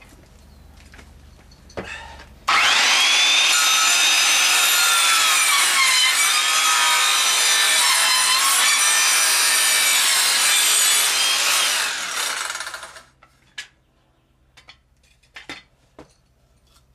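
Circular saw (Skilsaw) starting suddenly and cutting through a wooden board for about ten seconds, its whine sagging and wavering in pitch under load, then winding down; a few light knocks follow. The blade is getting dull.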